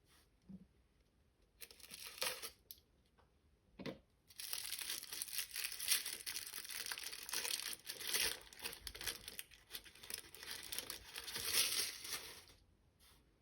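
Crinkly toy packaging wrapper being torn open and crumpled by hand: a few short crinkles, a sharp click about four seconds in, then steady crinkling and tearing for about eight seconds that stops abruptly near the end.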